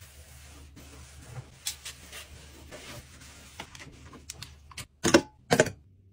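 Towel rubbing and squeaking as it wipes down a stainless-steel sink and faucet, with scattered light scrubbing strokes. Near the end come two loud sharp snaps about half a second apart.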